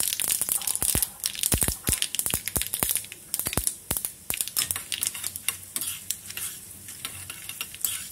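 Mustard seeds and split dal frying in hot oil in a small steel kadai, a tempering: a steady high sizzle with many sharp pops and crackles, thick for the first few seconds and thinning after.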